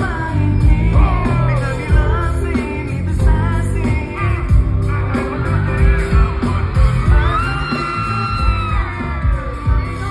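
Loud amplified pop song, with singing over a heavy bass beat and an audience yelling and whooping on top.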